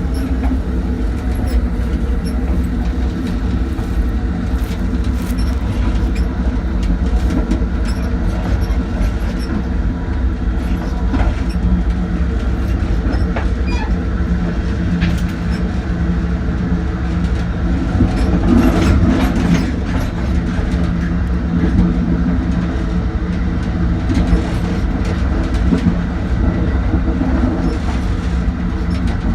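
Amtrak train running: a steady loud rumble with a low hum, and scattered clicks and knocks from the wheels and cars throughout, a little busier about two-thirds of the way through.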